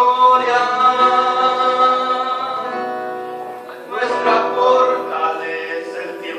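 Small choir singing a Spanish-language worship song with acoustic guitar. A long note is held and slowly fades, then the next sung phrase begins about four seconds in.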